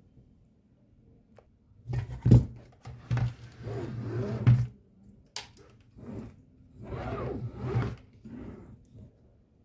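Handling noise from reassembling an opened amplifier: knocks and rustling of the circuit board and wiring in the metal chassis, with a sharp click a little past halfway.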